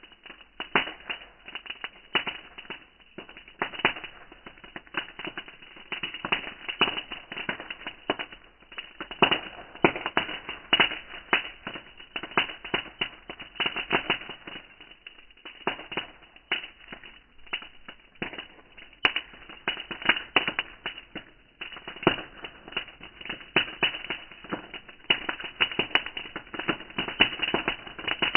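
Bonfire crackling, the burning wood giving off dense, irregular snaps and pops of varying loudness.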